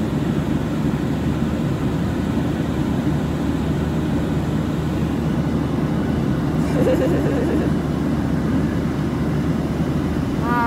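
Steady low cabin noise of an airliner in flight: engine and airflow sound, even throughout.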